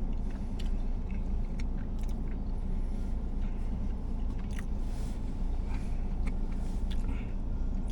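A person chewing a mouthful of cheeseburger, with scattered small mouth clicks, over a steady low rumble.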